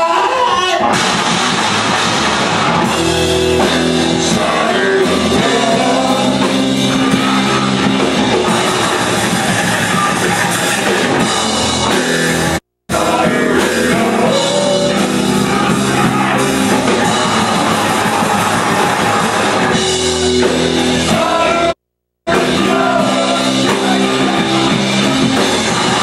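Loud rock music with a drum kit and a singing voice, cutting out abruptly twice.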